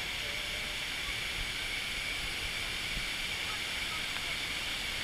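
Steady hiss of falling water from artificial rockwork waterfalls, with faint voices in the background.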